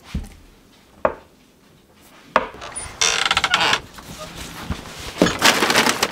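Objects being rummaged through on a cluttered shed floor: a couple of single knocks, then from about two seconds in irregular scraping, knocking and plastic-bag rustling.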